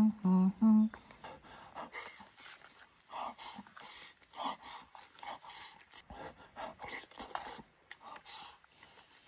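Close-up eating sounds: a man chewing mouthfuls of rice and meat with noisy, irregular breaths through the mouth, after two short hummed notes of relish at the start.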